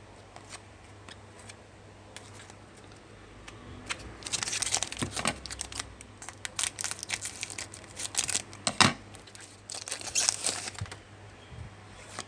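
Trading-card pack wrapper being torn open and crinkled, a run of rustling and crackling from about four seconds in until near the end.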